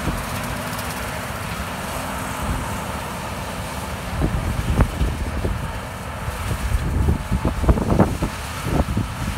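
John Deere S680 combine running under load as it harvests corn, a steady machine drone. From about four seconds in, wind gusts buffet the microphone in uneven thumps.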